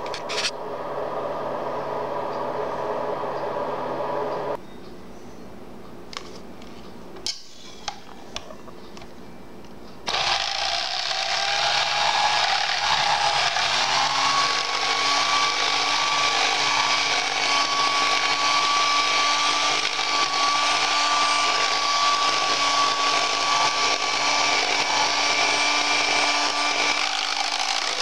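Electric hand mixer switched on about ten seconds in, after a few clicks. Its motor runs steadily with its beaters churning juice in a plastic bowl, and its pitch rises a few seconds after starting and then holds.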